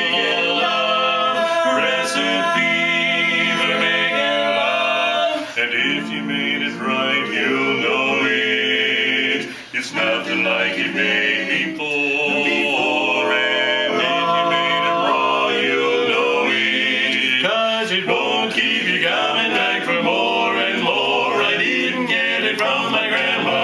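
Male vocal quartet singing a cappella in four-part barbershop harmony, with brief breaks between phrases.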